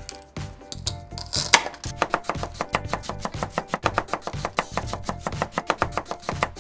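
Plastic toy knife chopping a toy strawberry on a plastic cutting board: rapid light taps, about seven a second, from about two seconds in. A brief scrape comes shortly before, as cut pieces are pushed off the board.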